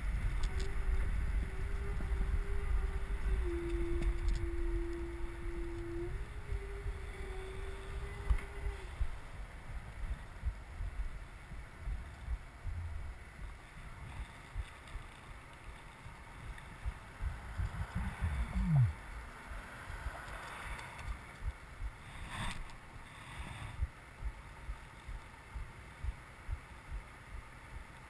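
Wind buffeting the microphone of a bike-mounted camera while riding, over road and traffic rumble. A steady hum stops about nine seconds in, and the rumble gets quieter later on.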